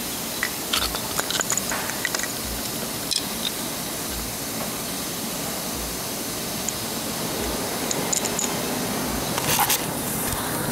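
A steady hiss with a few light clicks and clatters as small carburetor parts are handled, the loudest cluster near the end.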